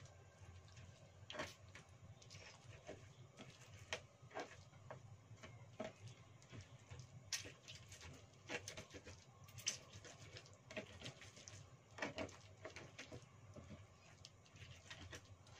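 An ulekan pestle mashing fried chillies, shallots, garlic and tomato for sambal terasi in a cobek mortar: faint, irregular knocks as the pestle is worked slowly.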